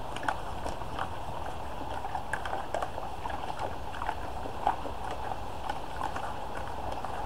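Husked black walnuts being stirred in a bucket of water with a stick: the water sloshes and the hard nuts clack and knock in irregular clicks, a few a second, with one louder knock a little past halfway.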